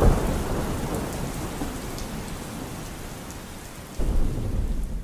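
Steady rain with rolls of thunder. A low rumble breaks in at the start and fades over about four seconds, and another starts suddenly near the end.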